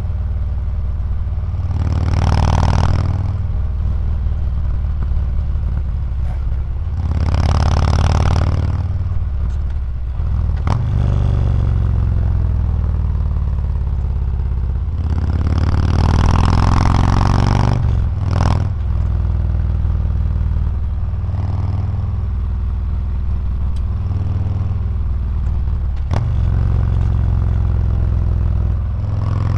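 Harley-Davidson Milwaukee-Eight V-twin running through Reinhart DBX slip-on mufflers while riding at road speed: a steady deep exhaust rumble that swells louder three times, with a few sharp clicks in between.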